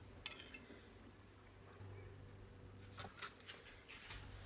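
A metal serving spoon lightly clicking and scraping against a plate and a foil-lined baking pan: a few faint clicks near the start and a quick cluster of sharp ticks about three seconds in, over a low steady hum.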